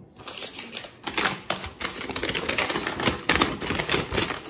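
Sheet of paper being picked up and unfolded by hand: a run of quick crackles and rustles, starting about a second in.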